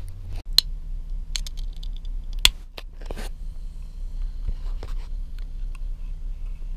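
A car engine idling with a steady low hum, under a few sharp clicks and scratchy handling noises about half a second, a second and a half, two and a half and three seconds in.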